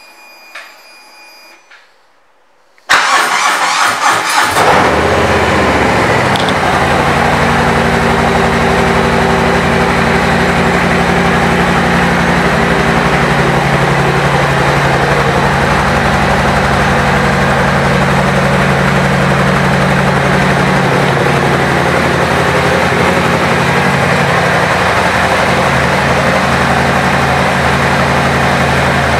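Harley-Davidson Street Bob's Milwaukee-Eight 114 V-twin, on Vance & Hines exhaust pipes, cranks and fires about three seconds in. It then settles into a steady idle.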